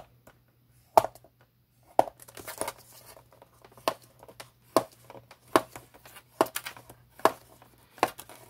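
A bone folder scoring cardstock in the grooves of a paper scoring board: a sharp click-scrape about once a second as each half-inch score line is drawn, with paper rustling between the strokes.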